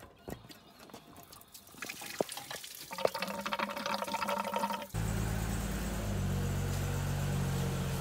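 A few light metallic clicks at the bottom radiator hose, then coolant pouring out of the detached hose to drain the radiator. About five seconds in this gives way abruptly to the 1960 Ford Falcon's straight-six engine idling steadily.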